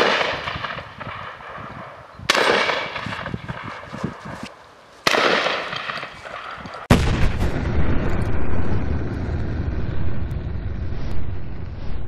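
UTAS XTR 12 semi-automatic 12-gauge shotgun firing three shots about two and a half seconds apart, each ringing out and fading. About seven seconds in, loud music cuts in and carries on.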